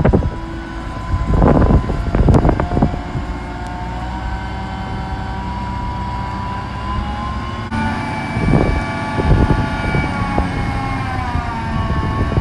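XCMG QY70K-I truck crane's diesel engine running under load, with the whine of its hydraulics as the boom is raised; the whine shifts in pitch a few times and drops near the end. A few short loud rushes of noise come through, about two seconds in and again about nine seconds in.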